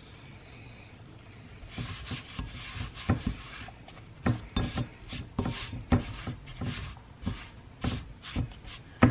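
Hands patting and rubbing flour onto a ball of bread dough in a glass bowl: irregular soft pats and rustling that start about two seconds in.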